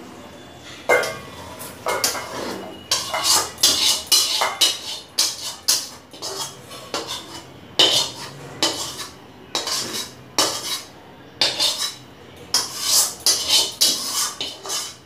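Metal spoon scraping and knocking against a metal kadai as chicken curry is scraped out into a bowl: a run of scrapes and clinks, in quicker flurries a few seconds in and again near the end.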